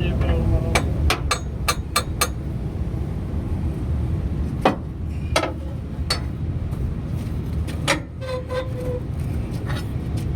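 Hammer blows on the steel of a BharatBenz truck's leaf spring during repair. A quick run of about six knocks comes in the first couple of seconds, then a few single blows, and one a little before the end leaves a short ringing tone, all over a steady low rumble.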